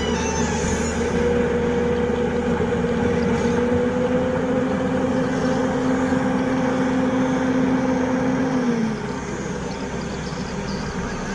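Excavator's diesel engine running steadily at high revs under hydraulic load; the pitch rises slightly, then the revs drop and it goes quieter about nine seconds in.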